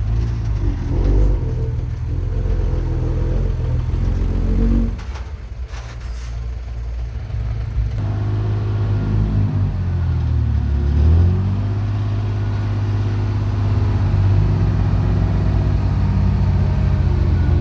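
Heavy construction-machine engines running. The engine sound dips about five seconds in, changes abruptly around eight seconds, then slides down in pitch and back up near eleven seconds, as if revving under load, before settling into a steady run.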